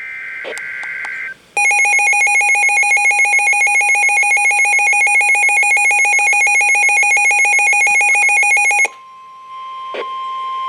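Emergency Alert System warning tones: a short burst of the warbling data header, then the loud, rapidly pulsing two-tone attention signal for about seven seconds. It cuts off into a quieter, steady single beep-like tone, with a couple of clicks.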